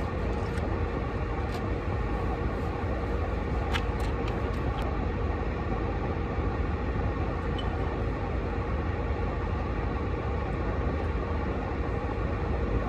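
Steady low rumble and hiss of a car running, heard inside its cabin, with a few faint clicks about four seconds in.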